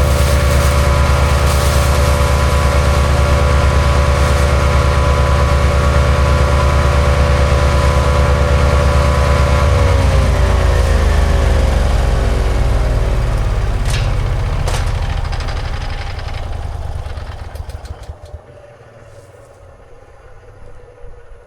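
MechMaxx B200 wood chipper's gasoline engine running steadily at speed. About ten seconds in it slows with a falling pitch, then fades out over several seconds and goes quiet, as when the engine winds down.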